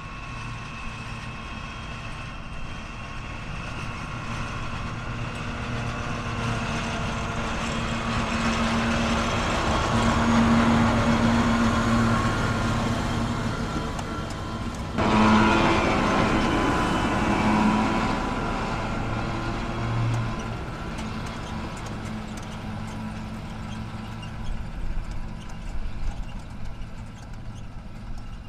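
Fendt 724 tractor's six-cylinder diesel engine running steadily under load as it pulls a potato planter past. It grows louder as it comes close, jumps abruptly in loudness about halfway through, then fades as it moves away.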